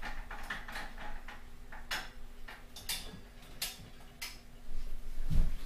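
Irregular light clicks and taps from handling a torchiere floor lamp's bowl shade and switch as it is turned on, with a low thump near the end.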